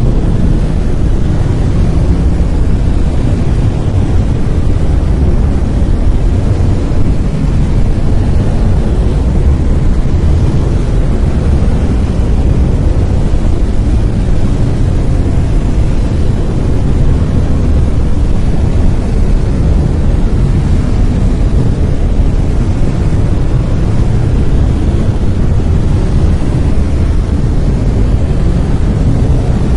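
Brown noise: a loud, steady, deep rushing hiss, strongest in the bass and falling away toward the treble, with no changes or events.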